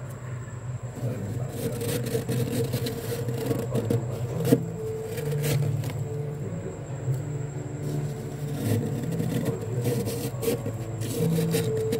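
Bare fingers scraping and clawing soft, flaky frost off a freezer's inner wall, in irregular scratchy, crunchy strokes over a steady low hum. One sharper crunch about four and a half seconds in.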